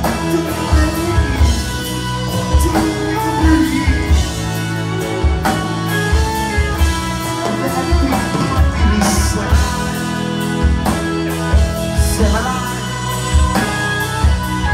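Rock band playing live: drum kit keeping a steady beat under electric guitar and bass.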